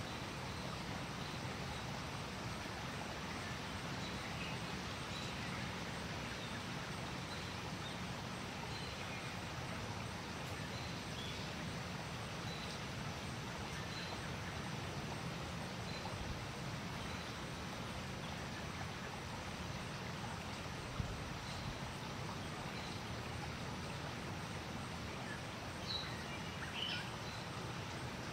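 Steady outdoor background noise with faint, short high bird chirps scattered through it, a single click about three quarters through, and a few louder chirps near the end.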